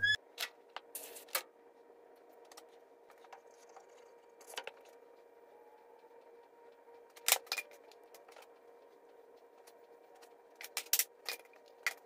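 Scattered sharp clicks and light clinks, as of small tools or parts being handled, coming in small groups, over a faint steady hum.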